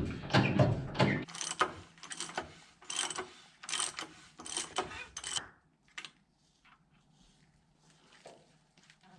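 Metal clicks and clinks of hand tools and parts being handled on a truck's hydraulic cab latch: a run of sharp, irregular clicks over the first five seconds or so, then a few faint ticks.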